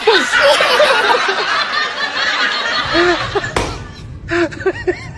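A person snickering and laughing in breathy bursts, with a sharp knock about two-thirds of the way through, followed by short high squealing giggles.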